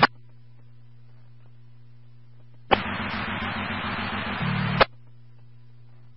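Police dispatch radio channel: a squelch click, then a steady low hum, and about three seconds in a two-second burst of radio static with no voice, as a transmitter keys up, cut off by another squelch click.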